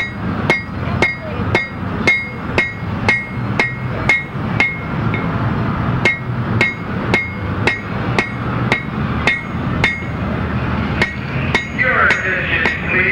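Blacksmith's hand hammer striking red-hot iron on an anvil, about two blows a second, each with a bright metallic ring. The hammering stops briefly about five seconds in, then resumes at the same pace.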